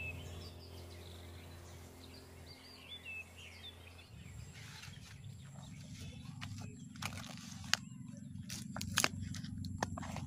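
Birds chirping over a low hum. From about four seconds in, a banana leaf is handled and folded around a bundle of yardlong beans, with crinkling and rustling broken by scattered sharp clicks and crackles.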